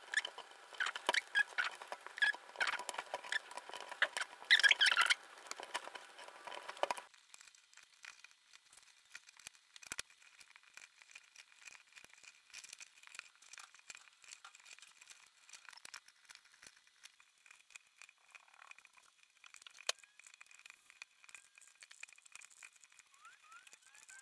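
Nylon paracord strands rustling, clicking and squeaking as they are pulled through the fingers and snugged into an eight-strand round braid. The sound is busy for about the first seven seconds, then becomes much fainter, scattered rustles.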